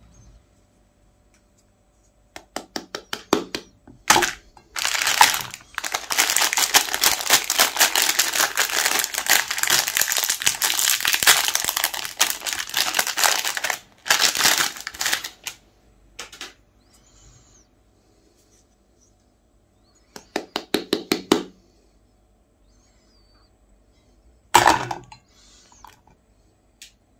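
Shiny Magnum Double ice cream wrapper crinkling as hands handle it. It comes in several bursts, with a long stretch of continuous crinkling from about five to fourteen seconds in. A single sharp knock comes near the end.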